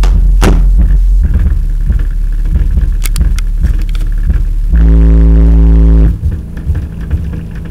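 Very loud, distorted deep bass notes from a pair of Behringer VP1800S 18-inch PA subwoofers, overloading the microphone. The bass pulses, swells into a long held note about five seconds in, and drops back about a second later.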